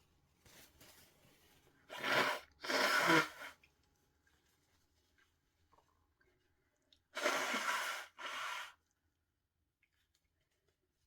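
A person sneezing: two pairs of loud, noisy bursts, the first pair about two seconds in and the second about seven seconds in.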